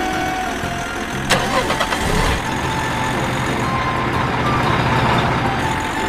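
Vehicle engine sound effect: a sharp click and a few knocks about a second in, then an engine running steadily that grows a little louder.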